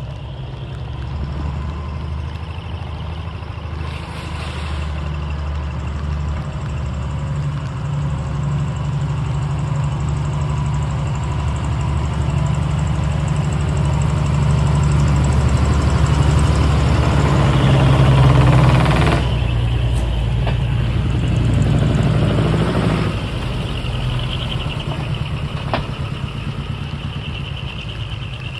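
Truck engine running, the rumble slowly building louder, then dropping off abruptly with a second sudden change a few seconds later.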